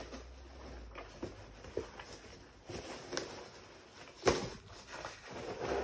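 Cardboard parcel being handled and opened: scattered light taps and rustles of cardboard, with one sharper knock about four seconds in.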